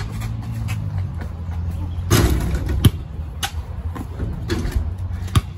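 A basketball bouncing a few times on a concrete driveway, a short knock about every half second, over a steady low hum. A short rush of noise about two seconds in.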